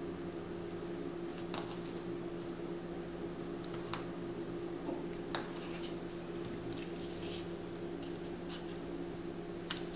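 Quiet handling of cardstock and double-sided sticky strip, with a few scattered light clicks over a steady low hum.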